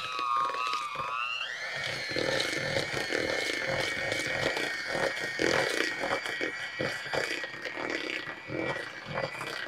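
Electric hand mixer running with its beaters in thick refried beans: a steady motor whine that rises in pitch about a second and a half in and then holds, with the beaters rattling against the bowl.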